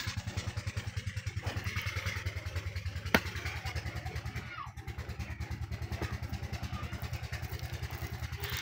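An engine idling steadily nearby, with an even, rapid thudding of about nine beats a second. There is a single sharp click about three seconds in.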